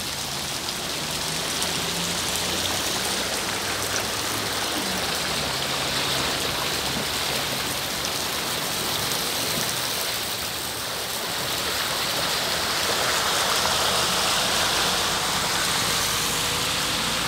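Rain and floodwater running through a street, a steady hiss; the water is pooling and flowing because blocked storm drains cannot carry it off. A faint low hum runs underneath.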